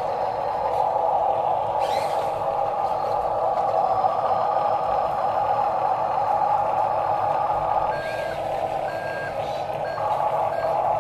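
Small electric gear motors of radio-controlled toy construction models whine steadily. About eight seconds in, a toy RC dump truck's electronic reversing beeper starts, beeping on and off at an even pace.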